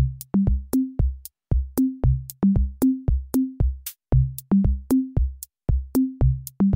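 Electronic intro music: a drum-machine beat of short, punchy low pitched hits, about three a second, stepping among a few bass notes.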